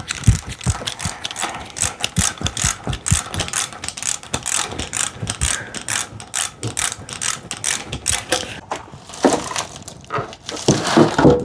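Socket ratchet clicking in a run of quick, even clicks as it is swung back and forth on the Miata's 21 mm crank bolt. It gives way to rustling handling noise near the end.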